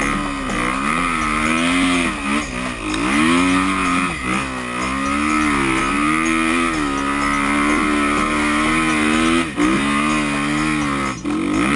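Motorcycle engine running hard as it is ridden, its pitch rising and falling with the throttle and dropping sharply several times when the throttle is cut.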